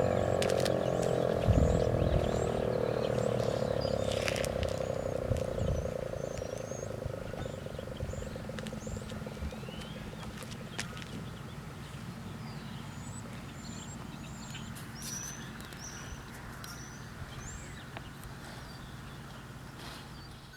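ASC T-128 outdoor warning siren winding down at the end of its test blast, its tone fading away over about eight seconds, with birds chirping throughout.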